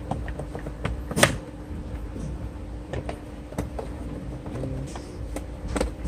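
Plastic steering column trim cover being fitted and pressed into place on a Volkswagen Passat, giving a scatter of sharp plastic clicks and knocks, the loudest about a second in, over a steady low hum.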